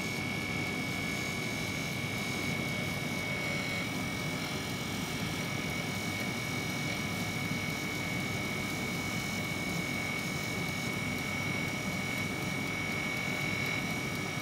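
A Keshuai air fryer running mid-cycle at 170 °C: a steady fan whir with a thin, constant high whine.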